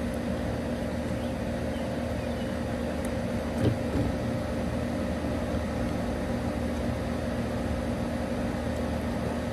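Steady hum of an air conditioner running, with a few fixed tones in it.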